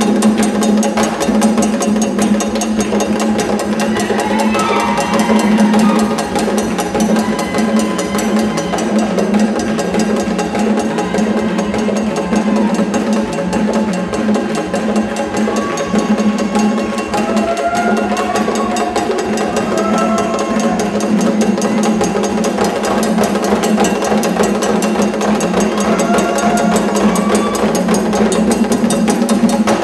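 Haitian drum ensemble playing a fast, steady rhythm of hand drums and sharp wooden-sounding strikes, with faint voices singing over the drums.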